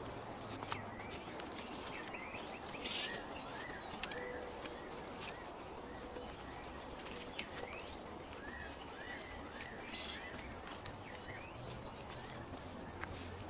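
Small birds chirping and calling, short notes repeated in quick series, over a steady background hiss with a few faint clicks.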